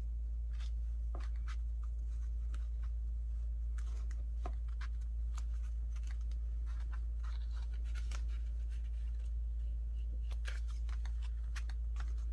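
Scissors snipping paper in scattered short cuts, with light paper handling, over a steady low hum.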